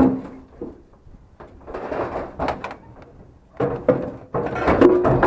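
Scrap metal being pushed and slid into place: a sharp knock, then scraping and clattering of metal against metal.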